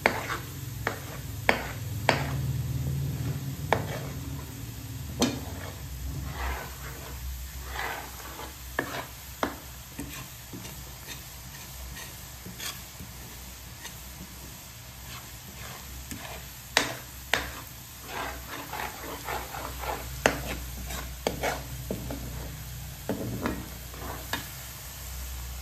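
A metal spatula scraping and tapping irregularly against a wok as coconut curds are stirred in bubbling oil, with a light sizzle underneath.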